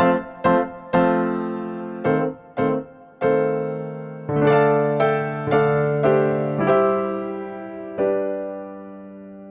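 Background music: a piano or electric piano playing a slow melody of struck notes and chords, the last chord ringing out and fading near the end.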